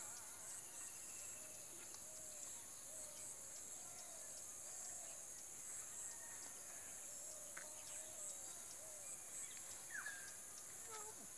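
Faint open-air field ambience: a steady high-pitched insect drone with a few faint bird calls, one a short falling note about ten seconds in.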